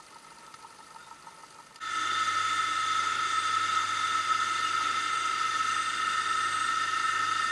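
Motorboat engine running at speed: a steady high-pitched whine over a low hum. It starts suddenly about two seconds in, after a faint, quiet stretch.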